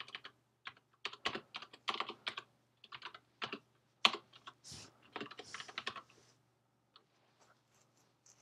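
Computer keyboard typing in quick irregular runs of keystrokes, stopping about six seconds in, after which only a few faint clicks are heard.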